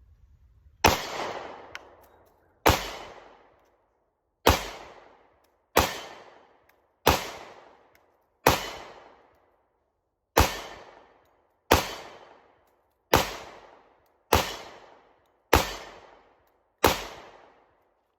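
Twelve 10mm pistol shots from a Glock 20 in an MCK 2.0 chassis, fired one at a time about one to two seconds apart, each followed by a rolling echo that dies away within a second or so.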